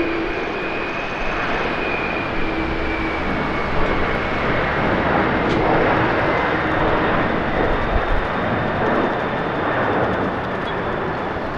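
Twin turbofan engines of a Boeing 767 airliner at takeoff thrust: a steady jet roar with a high fan whine that slides down in pitch over the first few seconds as the plane lifts off and climbs away.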